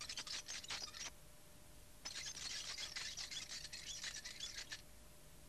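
Bicycle freewheel ticking rapidly as the bike coasts, in two runs: the first stops about a second in, and the second lasts from about two seconds in until nearly five.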